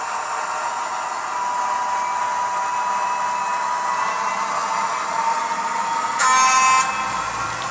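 Simulated diesel engine sound from the Zimo sound decoder of a TT-scale ČSD class 754 locomotive model, played through its small speaker: a steady whirring hiss with a thin, held whistling tone. About six seconds in comes a short, loud toot.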